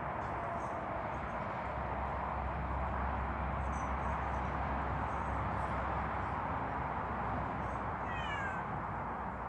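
A domestic cat gives one short meow with a falling pitch, about eight seconds in, over steady background noise.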